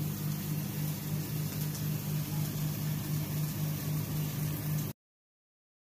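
A steady mechanical hum: a low drone pulsing about four times a second over a hiss, which cuts off suddenly near the end.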